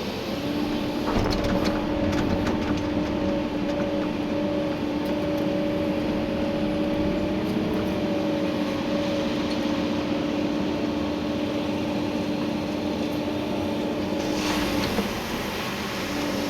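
Komatsu PC290-11 excavator's diesel engine and hydraulics running under load, heard from inside the cab, with a steady two-note whine over the engine noise. A few knocks in the first seconds, and a louder rush near the end as the whine briefly drops out.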